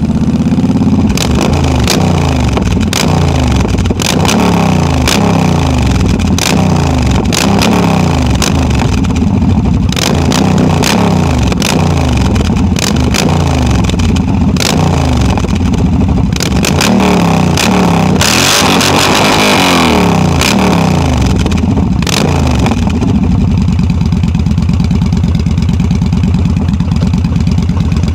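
Yamaha V Star 1300's V-twin engine through loud drag pipes, revving up and dropping back again and again at low speed, then settling to a steady, even run for the last five seconds or so. About two-thirds of the way through there is a brief hiss lasting about two seconds.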